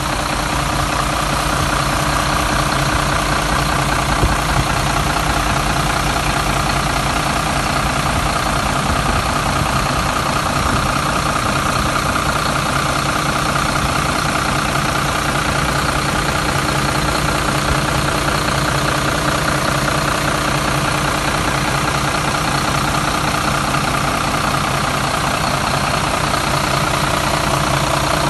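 Iveco Irisbus Recreo coach's diesel engine idling steadily, heard up close in the open engine compartment.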